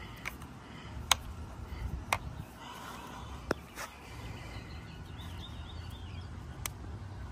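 A few sharp, separate clicks and taps from handling a plastic handheld tire inflator and its air hose, over a low rumble. The compressor motor is not running.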